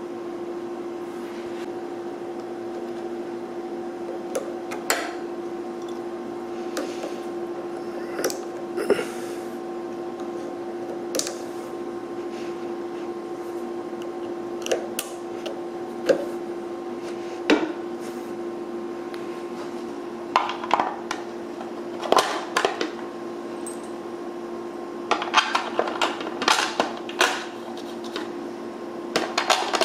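Scattered light clicks and taps of small metal parts being handled at the chain-drive sprockets of a Delta 22-560 portable planer, coming in quick clusters in the last ten seconds, with knocks as a plastic drive cover is fitted near the end. A steady mechanical hum runs underneath throughout.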